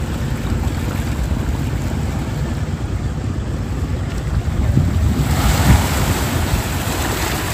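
Wind rumbling on the microphone throughout. From about five seconds in, a small wave breaks and washes hissing over the rocky shore.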